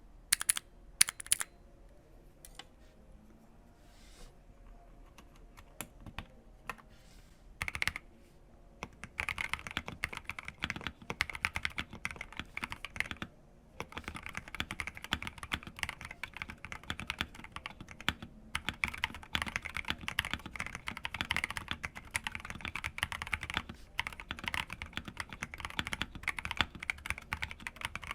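Mechanical keyboard being typed on: a KBD67 Lite with factory-lubed C3 Tangerine linear switches and a Cherry-profile keycap set. A few scattered keystrokes for the first several seconds, then steady fast typing from about nine seconds in, broken by a couple of brief pauses.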